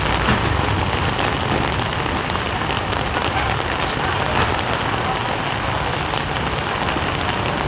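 Heavy rain falling steadily, with individual drops ticking on nearby surfaces.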